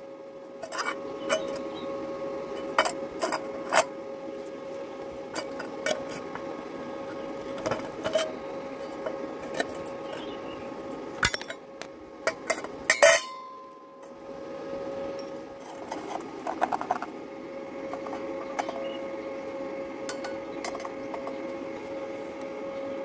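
Thin-walled galvanized steel square tube clinking and knocking as pieces are handled and set down on a concrete floor: a scattering of short, sharp metallic clinks, the loudest about thirteen seconds in, over a steady hum.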